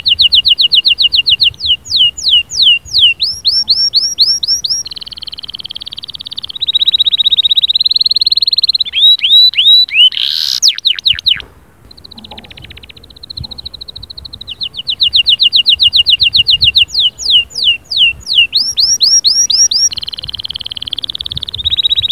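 Domestic canary singing a fast, continuous song of rolling trills, each a quick run of repeated sweeping whistled notes, switching from one trill to the next every second or two. There is a brief lull about halfway through.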